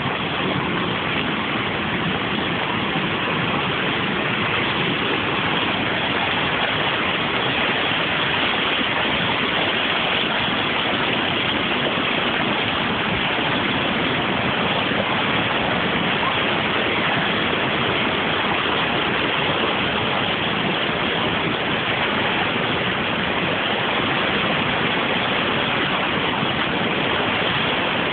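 Floodwater rushing in a steady, unbroken roar as a muddy torrent pours past.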